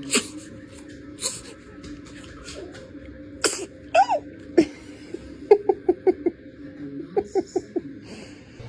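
Baby sneezing: several short, sharp sneezes in the first half, then two quick runs of short pitched pulses, like giggling, near the end.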